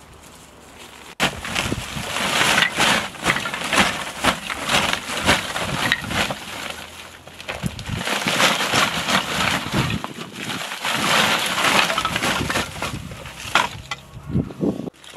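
Split wooden kindling clattering and knocking as it is shaken out of a woven plastic sack onto the ground, with the sack crinkling, starting about a second in.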